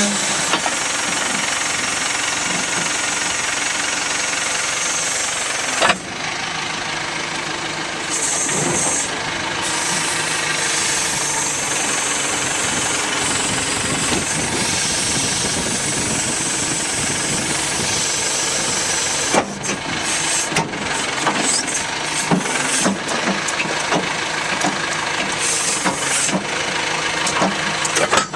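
Terex 760 backhoe loader's Perkins 90 hp diesel engine running steadily. About six seconds in the sound dips briefly. From about two-thirds of the way through, the level turns uneven, with short dips and surges.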